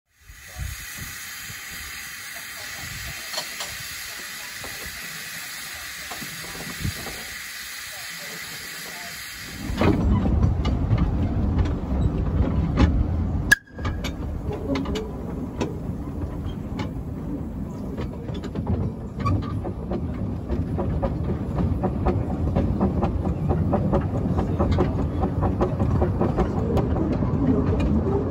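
Kerr Stuart Wren 0-4-0 saddle-tank steam locomotive: for about ten seconds a steady hiss of steam, then an abrupt change to the sound of the ride from the footplate, a low rumble with rapid clicking of wheels on the rails.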